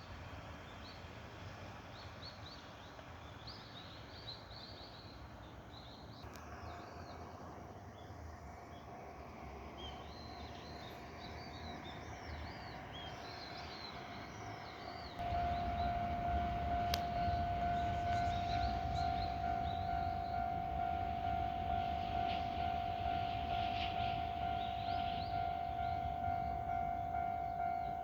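Japanese railway level-crossing warning alarm sounding as a steady electronic tone. It is faint at first, then much louder from about halfway, joined by a low rumble. Small birds chirp in the first half.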